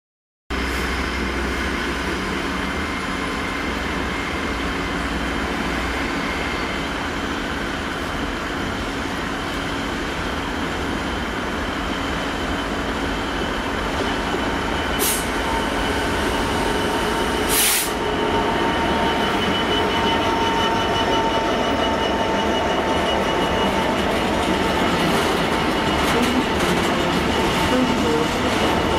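Freight train hauled by a Class 66 diesel locomotive, with its two-stroke V12 engine running, passing slowly with covered steel-coil wagons rolling on the rails. Two sharp knocks come about halfway through, and a steady high wheel squeal follows in the second half.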